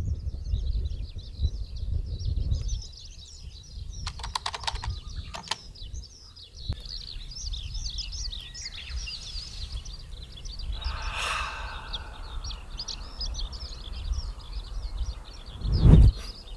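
Birds chirping and twittering continuously in rapid, high calls, over an uneven low rumble of wind on the microphone. A brief, louder low thump comes near the end.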